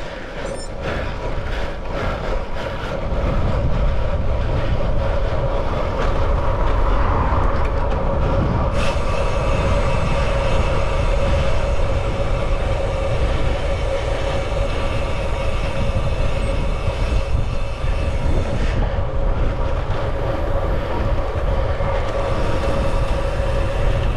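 Wind rushing over a bike-mounted camera's microphone, with tyre and drivetrain noise from a road bike rolling along at speed. It grows louder over the first few seconds and carries a steady whine throughout.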